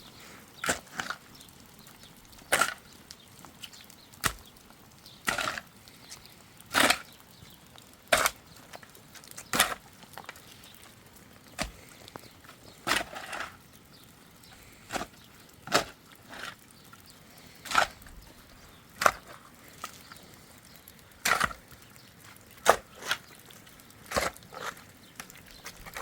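A tool striking wood: a long series of single sharp blows, about one every second or so, unevenly spaced.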